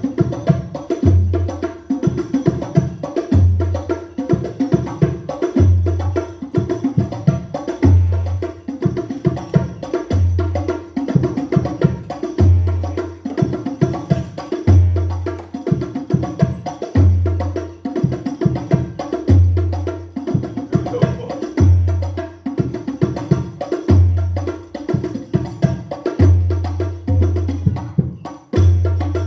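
Hadrah frame-drum percussion music played through a sound system, with a deep booming bass stroke about every two seconds under quicker, lighter hand strikes and jingles.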